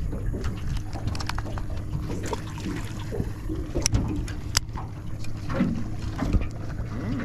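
Water lapping and splashing against the side of a fishing boat, over a steady low hum, with small irregular knocks and two sharp clicks about four seconds in.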